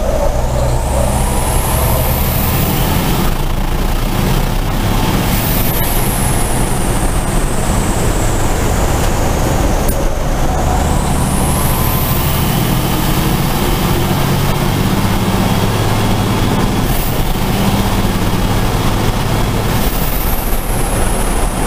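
Onboard sound of a race truck's turbocharged diesel engine running hard under racing load, with road and wind noise. The engine note rises and falls as it accelerates and lifts, and a faint high whine glides up and down several times.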